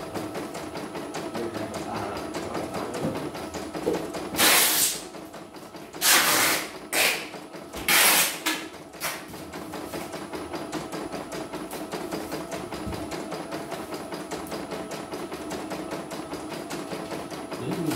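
Computerized single-needle embroidery machine stitching, a rapid, even run of needle strokes throughout. Several brief loud rushing noises interrupt it between about four and nine seconds in.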